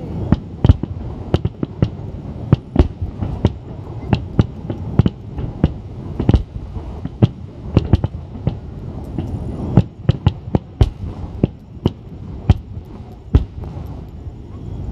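Aerial firework shells bursting in quick, irregular succession: several sharp bangs a second over a continuous low rumble of distant booms.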